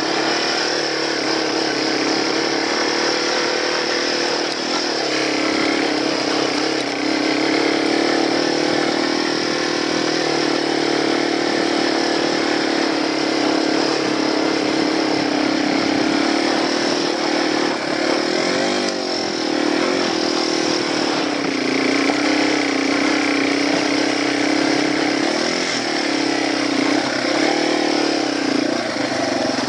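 Yamaha TW200 dual-sport's air-cooled single-cylinder four-stroke engine running under load as the bike pulls up a steep dirt trail. The engine note rises and falls with the throttle, with a few quick revs about two-thirds of the way through.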